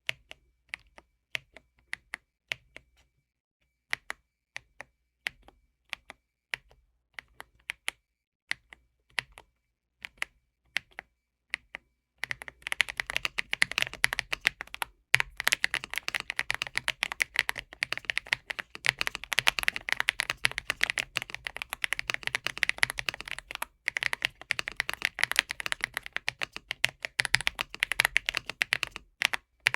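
Redragon K745 Pro mechanical keyboard being typed on: single keys pressed one at a time for about twelve seconds, then fast continuous typing.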